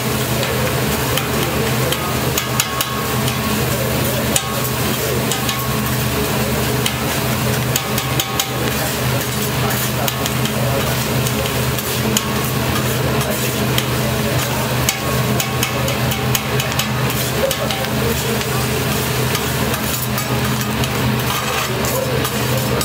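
Metal spatulas clicking and scraping on a hot teppanyaki griddle as rice is chopped and stirred, over a steady sizzle of frying. A steady low hum runs underneath.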